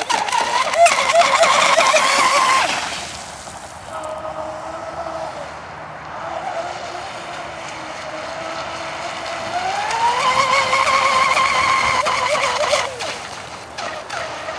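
Radio-controlled racing catamaran's motor running at high throttle with a high, warbling whine as the boat skims the water. The whine drops away about three seconds in, then climbs in pitch and level again near ten seconds and falls off near the end.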